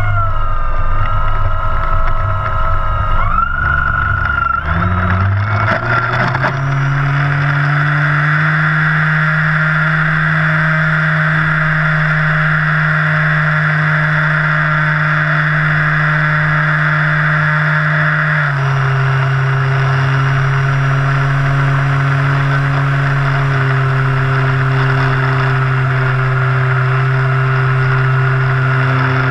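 Electric RC airplane's Rimfire brushless motor and propeller, heard from a camera mounted just beneath it. The pitch wavers and rises over the first few seconds, then settles into a steady drone at high throttle that steps lower a little past halfway and again shortly after as the throttle is eased back.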